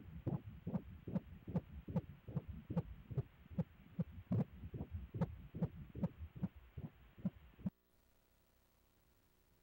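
Pulsed-wave Doppler audio from an 18-week fetus's heart: rhythmic pulses of blood flow at about two and a half beats a second, roughly 150 a minute, which is within the normal fetal range. The pulses stop suddenly about three-quarters of the way in, leaving a faint hum.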